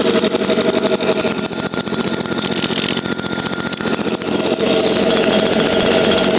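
STIHL small petrol engine running after a cold start, with a fast, even firing rhythm. Its note drops and quietens about a second in, then picks back up a little after four seconds.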